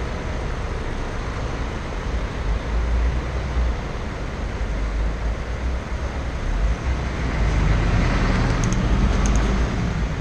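Road traffic of cars and buses heard from a moving bicycle, with wind rumbling on the camera's microphone. It grows louder about three-quarters of the way through, with a few brief high clicks near the end.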